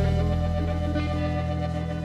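Background music: a held, sustained chord that slowly gets quieter.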